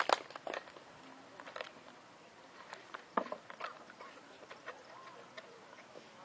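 Quiet open-air ambience with a few scattered faint clicks and knocks, the sharpest one about three seconds in.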